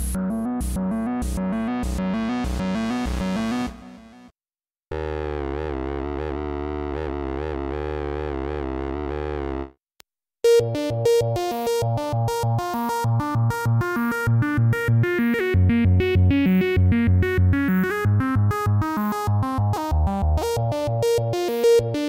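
u-he Bazille software modular synthesizer playing preset demos. A fast repeating arpeggio fades out about four seconds in, then a held chord wavers in pitch for about five seconds. From about ten seconds a busier arpeggio starts, over a pulsing bass line.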